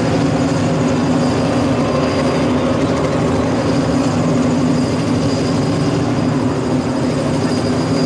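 Large football-stadium crowd chanting and roaring as one, a loud unbroken wall of voices.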